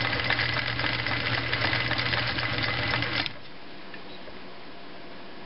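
Husqvarna Viking Type 21 sewing machine running fast with its zigzag cam engaged: a steady motor hum under a rapid, even clatter of the needle and cam mechanism. It stops abruptly about three seconds in.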